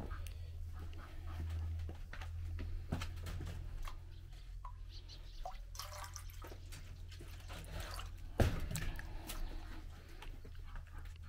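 Water dripping and trickling as a rabbit's water container is topped up, among scattered small clicks and knocks of handling, with one sharper knock about eight seconds in.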